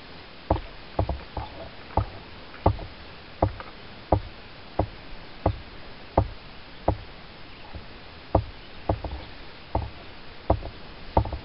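Fly-fishing stripping basket knocking against a camera tripod: a run of sharp taps, a little more than one a second, with a short break past the middle.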